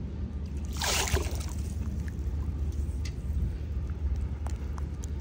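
Shallow river water sloshing as a metal detector is worked through it, with one louder splash about a second in and a few small knocks, over a steady low rumble.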